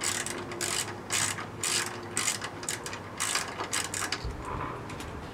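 Ratchet wrench with a 10 mm socket turning out a bolt that is undoing easily: a quick run of pawl clicks on each back-stroke, about two strokes a second, stopping about four seconds in.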